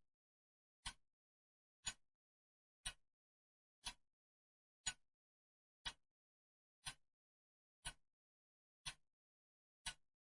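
Clock ticking steadily, one short, sharp tick each second, with silence between the ticks.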